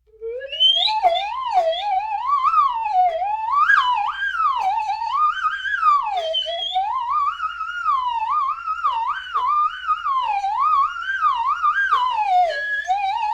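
Slide whistle gliding up and down without a break in quick, wobbly cartoon-style sweeps, one climb and fall after another. It starts out of silence with a rising sweep right at the start.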